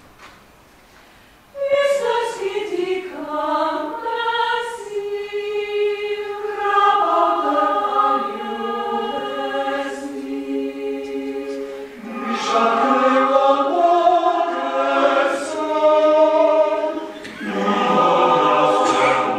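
Mixed choir of men's and women's voices singing sustained chords, coming in after about a second and a half of faint room noise and swelling and easing in long phrases, with a fuller, louder entry near the end.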